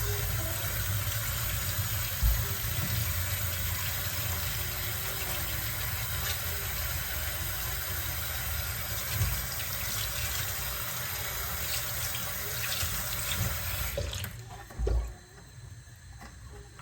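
Water running steadily from a kitchen tap, cutting off about fourteen seconds in, followed by a single thump.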